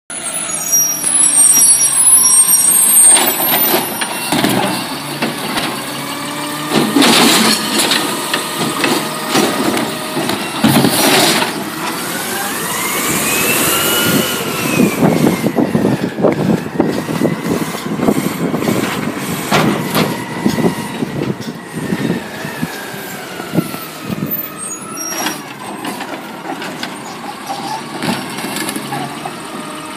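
Mack natural-gas automated side-loader garbage truck running as it pulls up and stops, its air brakes hissing loudly several times. A whine rises and falls in pitch over the engine as the truck works its way to the recycling cart.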